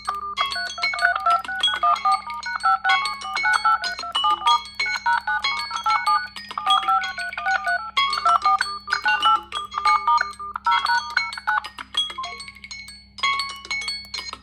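Smartphone ringtone playing: a quick electronic melody of short bright notes, repeating, with a short lull about twelve seconds in. A steady low hum runs underneath.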